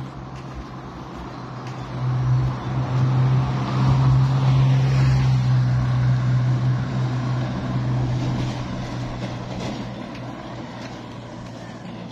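A small pickup truck drives past and pulls away down the road. Its steady engine hum and tyre noise are loudest about four seconds in, then fade.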